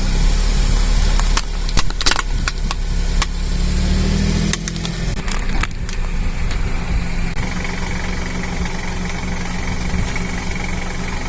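A car engine running steadily at low speed, with a series of sharp cracks and crunches as objects are crushed under its tyres, the most about one and a half to three seconds in and two more a little after five seconds.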